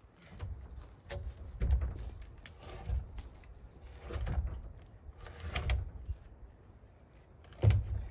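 Dull thuds of boots stepping over logs and forest ground, about one a second, with the loudest thud near the end.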